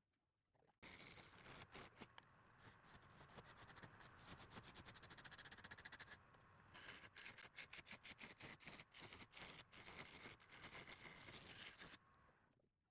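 Faint, rapid, irregular clicking and scraping of a turning tool cutting wood on a lathe, broken by short silent gaps at the start, about halfway, and near the end.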